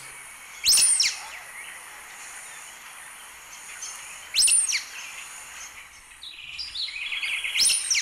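Sulphur-bellied flycatcher calling: a sharp, squeaky high note given three times, about three and a half seconds apart, over a faint steady hiss, with fainter chattering notes shortly before the last call.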